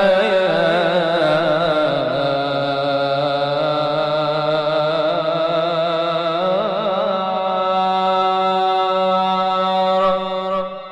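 A singer chanting an Arabic Islamic ibtihal, drawing one vowel out into a long ornamented melisma. The pitch drops about two seconds in, then settles into a held note that fades away near the end.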